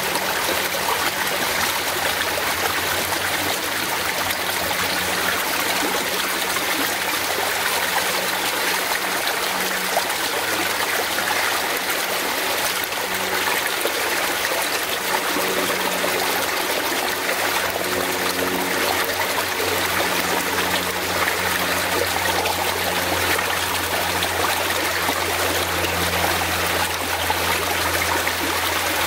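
Fast-flowing forest stream running steadily, an even rushing of water with a low steady hum underneath.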